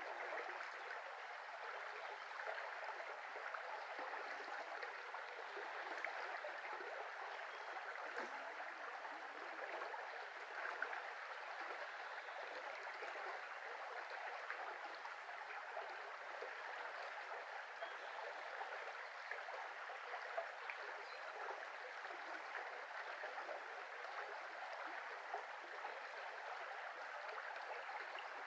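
A shallow, low-flowing brook running steadily, an even rush of moving water with no breaks.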